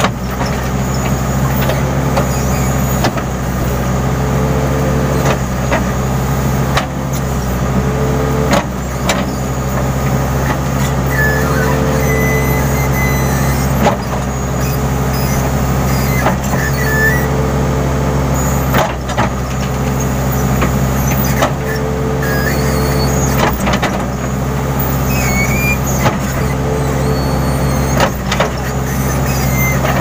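Case N Series backhoe loader's diesel engine running steadily under load while the backhoe digs. A hydraulic whine rises in repeated stretches of a second or two, with scattered knocks from the boom and bucket.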